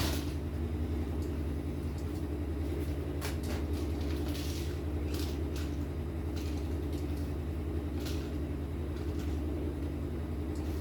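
A steady low mechanical hum with a few brief soft scuffs or rustles.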